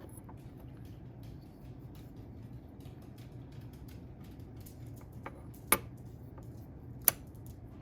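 Small parts of a SOG Terminus XR folding knife handled during reassembly: faint scattered clicks and taps, with two sharper clicks near the end, about a second and a half apart.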